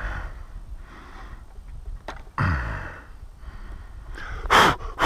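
A man's breathing while the chainsaw is stopped: a sigh that falls in pitch about halfway through, then two short, sharp, breathy puffs near the end, over a low rumble.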